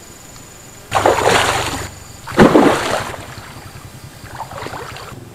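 Water splashing as a hooked fish thrashes at the surface while it is played on a rod: two loud splashes about a second apart, then a softer one.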